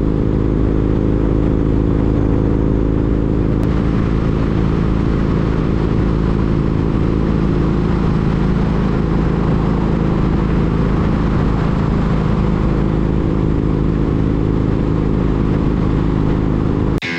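Motorcycle engine running steadily at cruising speed, with wind and road noise over it; the engine note changes a little about four seconds in. It cuts off suddenly near the end.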